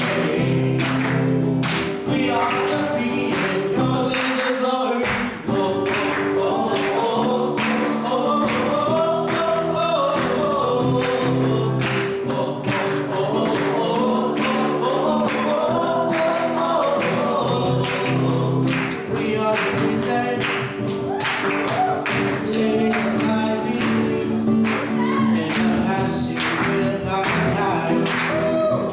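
Gospel music: a choir singing over a band with a steady beat.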